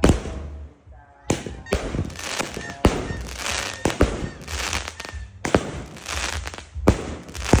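A 25-shot firework cake firing: shells launch and burst overhead as a series of sharp bangs, roughly one a second, with hissing and crackling between them.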